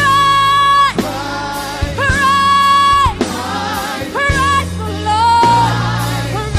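Live worship music: a singer holding long notes of about a second each, with a band playing underneath.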